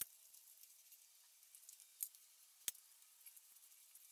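Three short, sharp metallic clicks from a ratchet and socket working the exhaust header bolts: one right at the start, then two close together about two seconds in.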